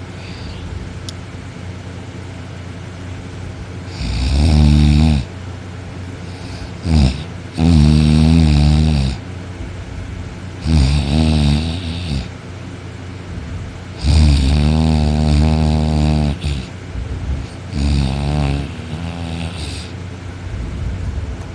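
Loud snoring: about six snores in a row, each lasting one to two and a half seconds, coming every three to four seconds, the longest about two-thirds of the way through.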